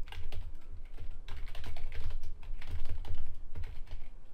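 Fast typing on a computer keyboard: a quick, uneven run of key clicks.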